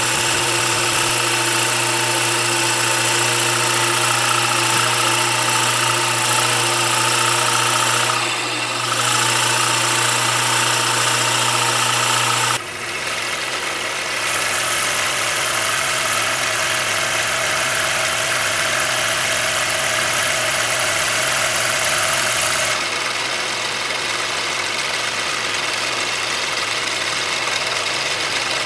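Mini lathe running with a wood block spinning in its chuck, while a flexible-shaft rotary grinder mounted on the tool post cuts into it: a steady machine whine over a high hiss. About twelve seconds in, the low hum cuts out and the sound changes as the spindle slows from about 850 to about 600 rpm.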